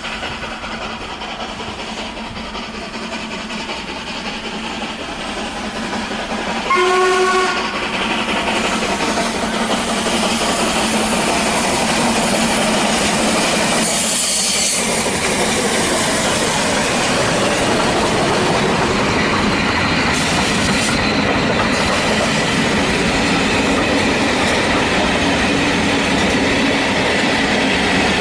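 Steam train running, a steady rumble that grows louder. About seven seconds in there is one short whistle blast, the loudest moment.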